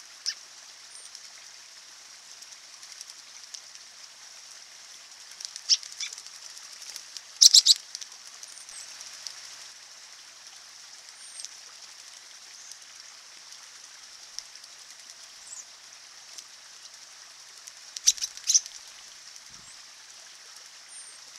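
American robins bathing in a shallow stream: brief bursts of splashing and wing-fluttering, the loudest about seven seconds in and another cluster near eighteen seconds, over the steady trickle of the water. A few short, high chirps.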